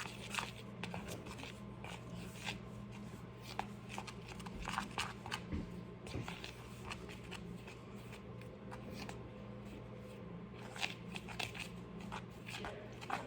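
Irregular scraping and clicking of a utensil stirring a thick flour-and-water paste in a bowl, over a steady low hum.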